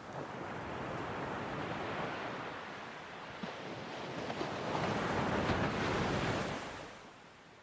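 Ocean surf washing in two slow swells, the second louder, then fading away near the end.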